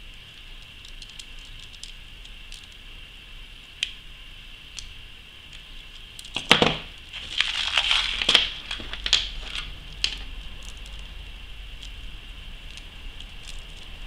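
Beads on a memory wire bracelet clicking and clattering against each other and the loose beads in a plastic bead box. A dense burst of rattling runs from about six and a half to ten seconds in, with scattered light clicks before and after, over a faint steady high hiss.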